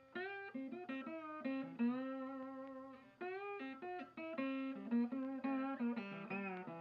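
Background music: a guitar playing a melody of separate plucked notes, several bending in pitch.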